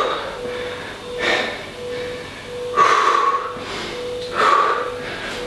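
A man breathing hard from exertion while holding a side plank, a loud breath about every second and a half, with a faint steady hum underneath.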